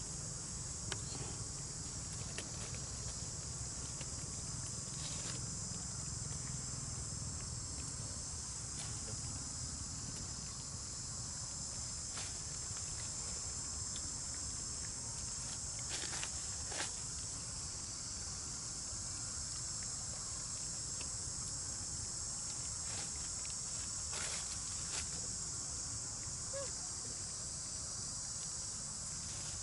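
Steady high-pitched chorus of insects, with a few faint, short clicks scattered through it.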